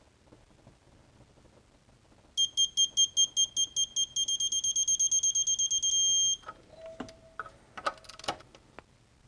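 Digital electronic torque wrench beeping as a cylinder head bolt is pulled up to its 40 N·m initial torque: high-pitched beeps starting a couple of seconds in, coming faster and faster, then running into a steady tone for about a second that cuts off when the set torque is reached. A few sharp metallic clicks and clinks of the wrench and socket follow.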